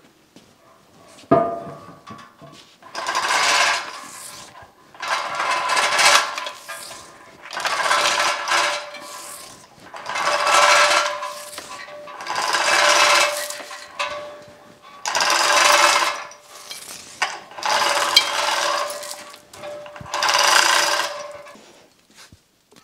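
Chain hoist on a gantry crane lowering the cast-iron knee of a DoAll milling machine: one sharp metallic clank about a second in, then about nine rhythmic runs of rattling chain, each lasting a second or so, roughly every two seconds.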